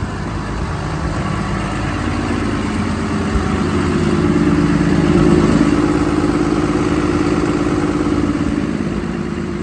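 Ford truck's 6.7-litre Cummins diesel engine idling steadily. It grows louder about three to four seconds in and eases off near the end.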